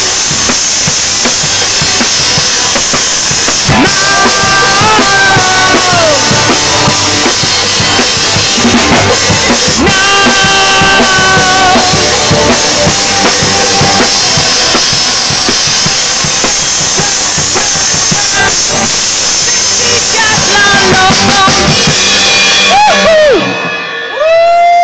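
Live pop band playing: a drum kit keeping a steady beat under electric guitar and keyboard, with long held vocal notes that bend at their ends. The music drops out for a moment near the end, then comes back in with a held note.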